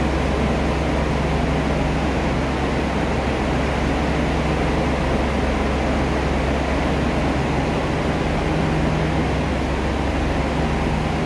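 Steady low drone with a hiss from the Aru Ressha diesel railcar idling at the platform.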